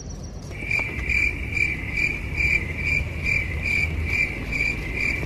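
High, insect-like chirping: one tone pulsing evenly about twice a second. It starts under a second in and cuts off suddenly near the end.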